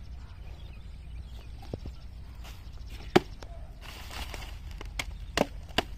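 A few separate sharp chops of a blade cutting into a green banana tree trunk, the loudest about three seconds in.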